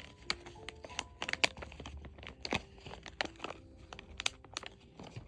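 Plastic snack bag being crinkled and handled: irregular sharp crackles, several louder ones scattered throughout.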